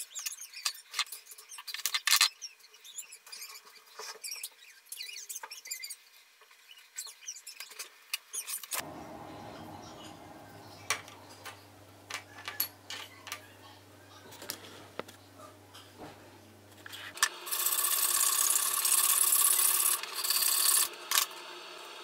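Small hand tools and silver parts being handled at a jeweller's bench: many quick clicks and taps at first. After a cut about nine seconds in there is a steady low hum with a few taps, and near the end a few seconds of loud rasping.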